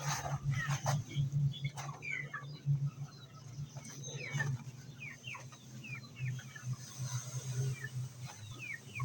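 Chickens calling: many short, high peeps that slide downward, repeated throughout, typical of young chicks. A steady low hum runs underneath.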